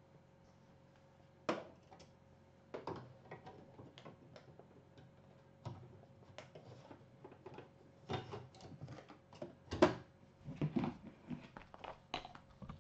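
Plastic embroidery hoop with its fabric being handled and fitted onto the embroidery arm of a Brother BP1530L embroidery machine: scattered clicks, knocks and rustles, busier in the second half, with the loudest knock about ten seconds in.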